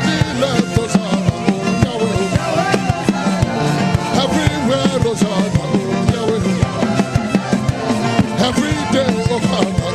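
Upbeat praise-and-worship band music with a fast, steady drum beat, bass, guitar and pitched lines, possibly with singing.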